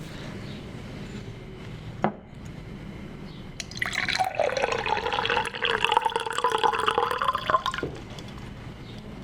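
Water poured into a glass for about four seconds, its ringing pitch rising as the glass fills, then stopping abruptly. A single sharp click comes shortly before the pour.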